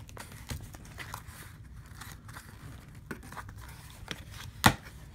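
A shipping package being opened by hand: packaging crinkling, tearing and scraping, with one sharp snap near the end.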